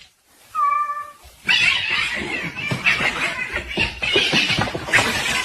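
A domestic cat meows once, a short call about half a second in, followed from about a second and a half by a continuous noisy rustling and clattering that is louder than the meow.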